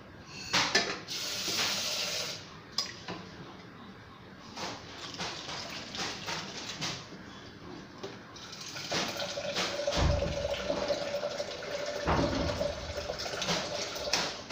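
Kitchen sink work: water running from a tap in spells, with scattered knocks and clinks of pots and utensils being handled.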